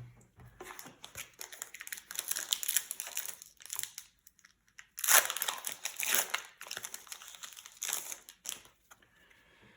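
Foil wrapper of a trading-card booster pack crinkling and rustling as it is handled and opened, in several bursts with short pauses.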